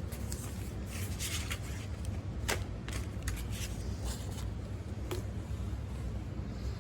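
Packaging being handled while unboxing: scattered rustling and crinkling with a few sharp clicks and taps, over a steady low hum.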